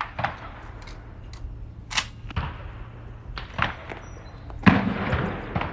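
Several separate sharp knocks and clicks. The loudest comes about three-quarters through and has a short ringing tail.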